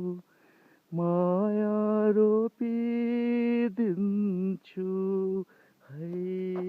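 An unaccompanied voice singing a Nepali song's melody without words, holding long notes. It steps up to a higher held note, falls back, and settles on a long low note near the end.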